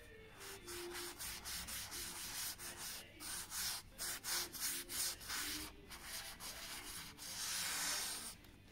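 A solvent-soaked cloth is rubbed back and forth over a copper etching plate, scrubbing off the stop-out varnish and rosin ground. It makes a series of quick scrubbing strokes, a few a second, then one longer continuous rub near the end.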